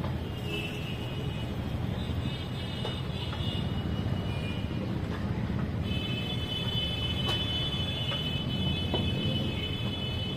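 Steady low rumble of background road traffic. Thin high steady tones come and go above it, and run unbroken through the last four seconds or so.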